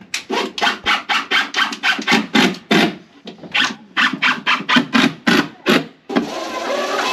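Plywood edges being sanded by hand, rubbed back and forth in quick rasping strokes about four a second, with a short pause in the middle and one longer steady rub near the end.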